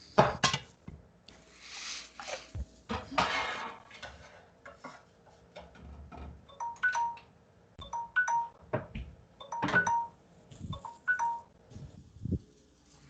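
Kitchen clatter: metal utensils knocking and clinking against pots and dishes, with irregular clicks and short ringing pings, and a couple of brief hissing scrapes in the first few seconds.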